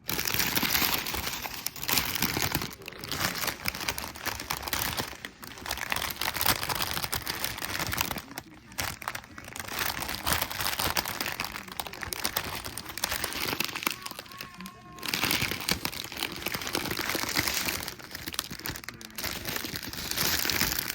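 Small plastic bags of diamond painting drills crinkling as they are handled and sorted through, in stretches broken by short pauses.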